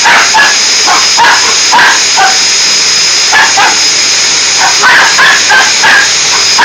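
Vacuum cleaner running steadily with a constant high whine. Short high vocal sounds break in over it again and again.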